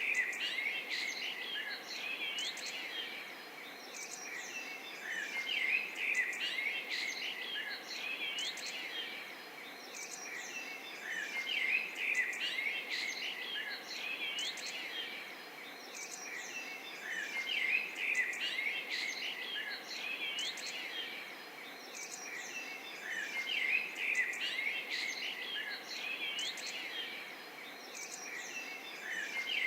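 A chorus of many small birds chirping and twittering at once, in a loop that repeats about every six seconds.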